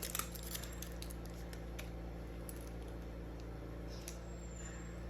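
A few faint clicks and taps of small coin-cell batteries and the plastic remote key fob being handled, clustered near the start and scattered after, over a steady low hum.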